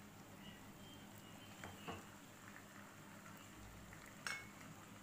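Faint sizzle of the pan as raw chicken pieces go into hot oil with fried shallots, with a few soft knocks, the clearest about four seconds in.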